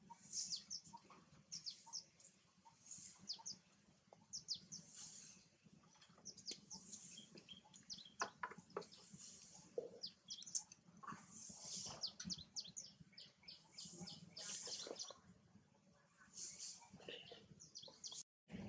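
Small birds chirping: many short, high chirps, scattered and overlapping, fairly faint.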